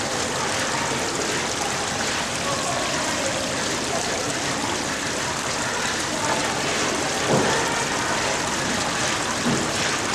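Steady rush of wash water over a running shaking table concentrator, with its machine noise underneath. A brief knock about seven seconds in.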